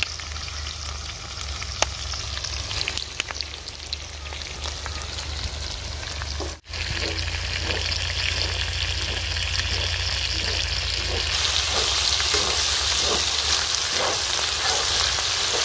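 Duck pieces sizzling in oil on a large flat iron tawa, with a spatula scraping and stirring them against the pan. The sizzle grows louder about two-thirds of the way through.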